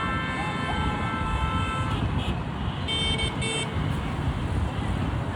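Car horns over steady traffic rumble: one horn held for about two seconds, then two short toots about three seconds in.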